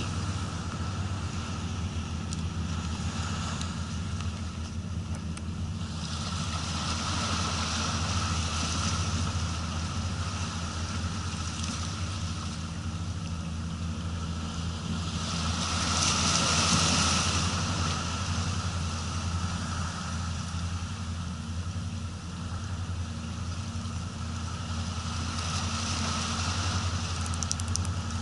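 A steady low engine hum runs throughout, under a rushing noise that swells up three times, loudest about two-thirds of the way through.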